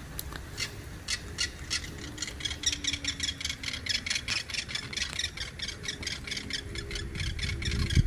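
Hawks calling during mating: a long run of short, high, sharp notes, a few at first and then about five or six a second, growing slightly louder.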